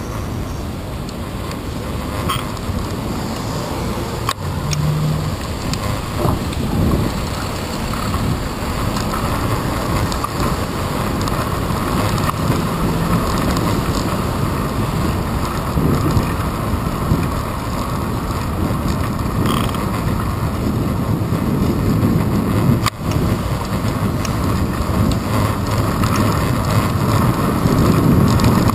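Wind and road noise of a bicycle ride, picked up through a handlebar-mounted GoPro Hero 2: a steady rumbling hiss that grows slowly louder, with a few faint clicks.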